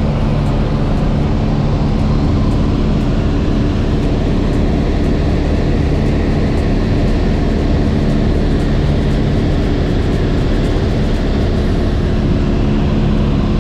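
Light aircraft's engine and propeller running steadily in cruise flight, heard from inside the cockpit as a constant drone with a low hum.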